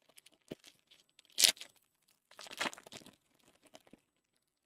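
A trading-card pack's foil wrapper torn open with one sharp rip about a second and a half in, followed by crinkling of the wrapper a second later.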